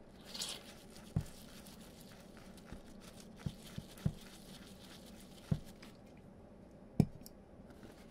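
A circuit board being cleaned with isopropyl alcohol. There is a short burst of brushing about half a second in, then faint scrubbing, broken by several light knocks on the bench. The loudest knock comes about seven seconds in.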